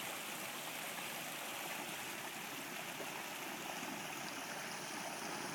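Steady rushing of water as the overflowing pond spills into a creek, rain-swollen after heavy rain.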